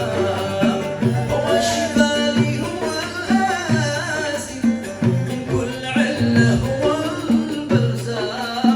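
Yemeni song's instrumental passage: an ornamented, wavering melody over a steady, repeating drum and bass rhythm.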